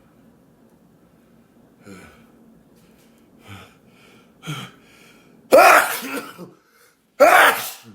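A person sneezing twice in quick succession, after a few short gasping breaths as the sneeze builds. Both sneezes are loud and voiced, and the second cuts off abruptly.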